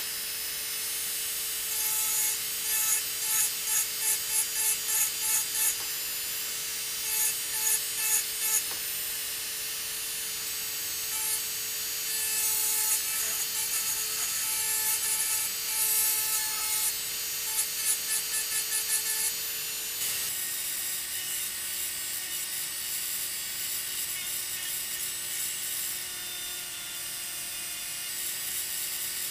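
Rotary engraving handpiece with a very small diamond burr grinding wet glass: a steady motor whine under short scratchy strokes of the burr, about two a second. Around twenty seconds in the whine drops slightly and the strokes give way to a softer, steady grinding.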